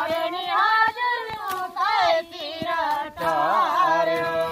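Women singing a Nepali folk song while weeding maize, unaccompanied, a high voice holding long wavering notes. A lower voice joins about three seconds in, and a few faint knocks of hoes in the soil come through.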